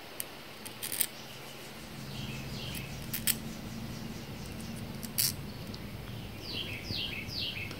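Light clicks of small metal carburetor parts handled and fitted together by hand, with a few sharper clicks scattered through. A bird chirps in short falling notes, in groups of two or three, in the background.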